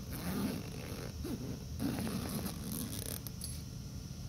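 Zipper on a DeWalt nylon tool bag being pulled open along the top, in two long rasping strokes, the second starting a little under two seconds in.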